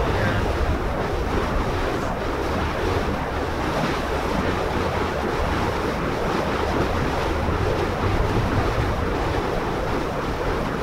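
A steady rushing roar of moving air with a deep rumble underneath, at a loud, fairly even level.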